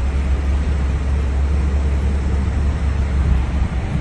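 Steady low rumble of a moving car heard from inside the cabin: engine and road noise.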